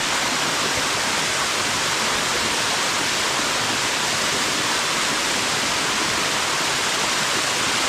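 Waterfall water rushing steadily, a loud, even hiss with no breaks.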